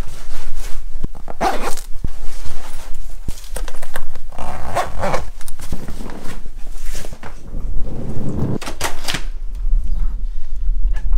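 Close handling noise as boots and camouflage clothing are picked up and rustled, with a low rumble throughout and a few short, loud bursts. A front door is unlatched and opened near the end.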